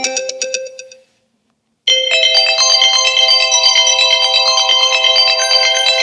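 Apple iPhone 13 Pro ringtones: one melody fades out in the first second, then after a short gap a new ringtone starts suddenly, a dense, fast-repeating pattern of high tones.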